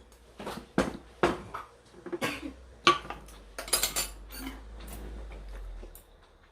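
Tableware clattering at a meal: utensils knocking against bowls and dishes in a string of separate clinks and knocks.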